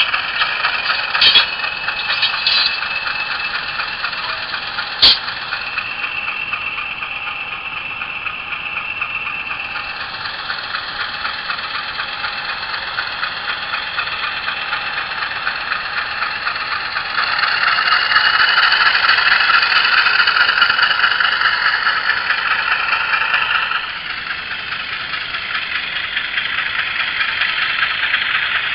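Sampled GE U28C diesel engine sound from an ESU LokSound decoder, played through an HO scale model locomotive's small speaker, so there is almost no bass. The engine runs with a steady beat. It gets louder for several seconds past the middle, then drops back. A few sharp clicks come in the first few seconds.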